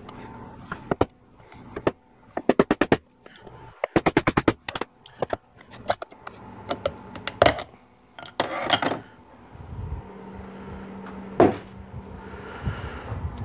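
Front seal being pried out of a 4L60E transmission's aluminium front pump with a screwdriver: quick runs of sharp metal clicks and taps, a scrape, and a single sharp knock near the end as the pump is set down.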